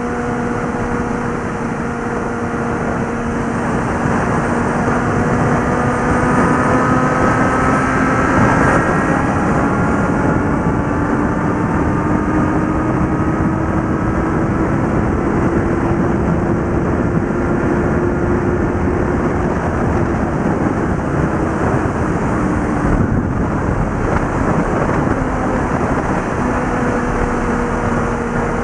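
Suzuki GSX650F inline-four engine and exhaust pulling under throttle at highway speed, its note rising slowly for about fifteen seconds, then easing off. Heavy wind rush on the helmet microphone runs under it, with a brief dip about two-thirds through.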